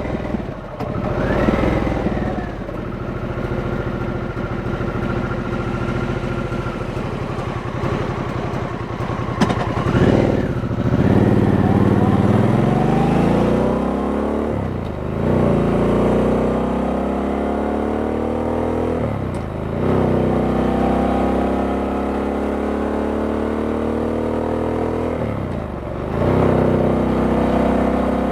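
Harley-Davidson Sportster S's stock V-twin running steadily, then opened up about ten seconds in, its pitch climbing through the revs and dropping back sharply three times as it shifts up through the gears.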